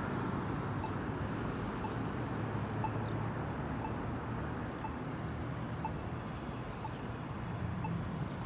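Polara iNavigator S accessible pedestrian signal push button sounding its locator tone: a short, faint tick repeating about once a second, over a steady rumble of street traffic.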